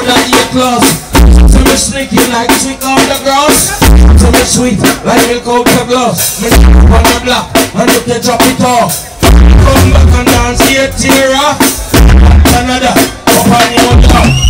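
Live dancehall band playing loudly through a PA: drum kit and deep bass notes recurring about every two and a half to three seconds, with a deejay chanting over it on the microphone.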